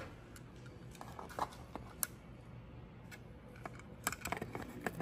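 Light plastic clicks and taps of a wireless door/window alarm sensor being handled and pressed back onto a door frame, with a sharper click about two seconds in and a cluster of clicks near the end.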